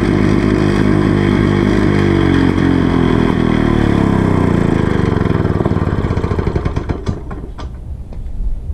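Freshly rebuilt Victa Special lawn mower's two-stroke engine running, then slowing and dying away about seven seconds in, with a few clicks and rattles as it stops.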